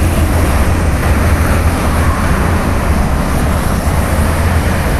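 Steady low rumble of a vehicle on the move, with road and wind noise and no distinct events.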